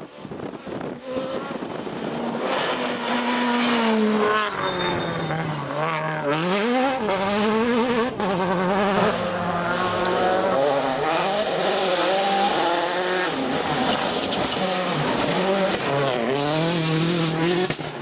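Rally car engine at full effort on a gravel stage, revs climbing and dropping again and again through gear changes and corners, with a few sharp cracks in the middle.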